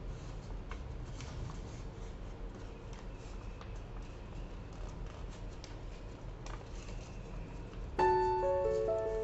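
Origami paper being folded by hand, rustling and crackling in small irregular ticks over a steady low hum. Piano music starts about eight seconds in.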